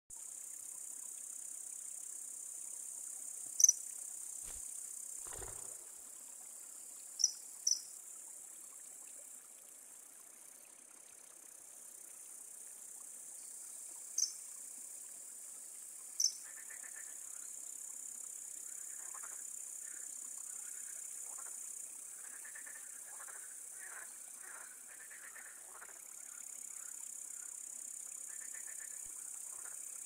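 Steady high-pitched chirring of crickets or other insects in wetland reeds. Five short, sharp high chirps stand out above it, and softer scattered chirps follow in the second half.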